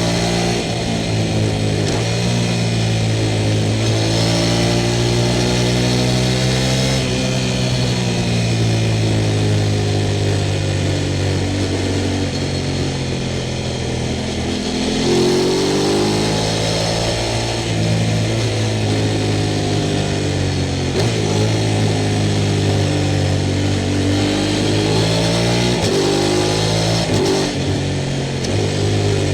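Sport motorcycle engine and exhaust running under load, its pitch climbing and dropping with throttle and jumping at several gear changes.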